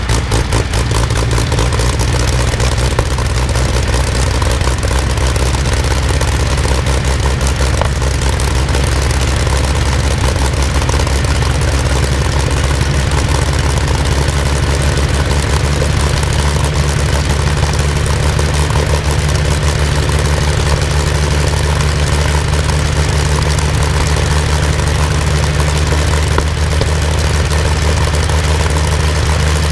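Rolls-Royce Griffon 58 36.7-litre V12 aero engine running at idle with its propeller turning. Its firing pulses are uneven at first, then settle into a steady, deep running sound about a second in.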